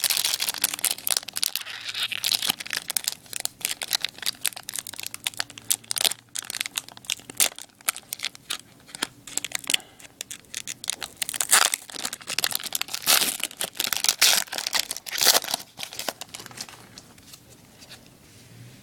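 Hockey card pack wrapper being torn open and crinkled by hand: irregular crackling and tearing, loudest in bursts in the second half.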